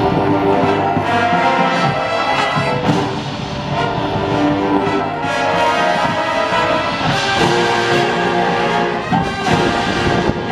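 High school marching band playing, with brass holding sustained chords.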